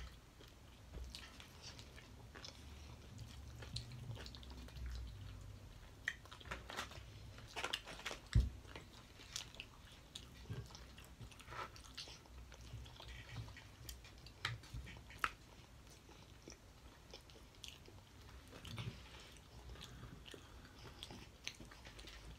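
Chewing and biting sounds of people eating seafood boil, with small wet clicks and crunches as shrimp are peeled and forked up. There is one sharper tap about eight seconds in.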